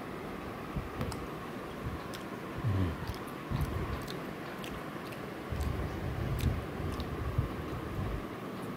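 A person biting into and chewing a peeled hard-boiled egg close to the microphone: irregular soft mouth sounds with a few small clicks.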